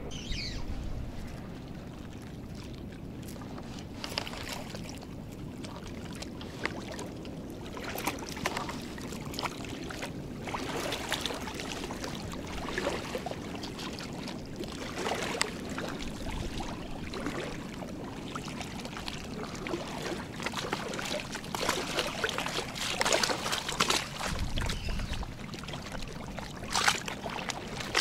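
River water lapping and trickling at the edge of the bank, with scattered small clicks and rustles from handling a spinning rod and reel.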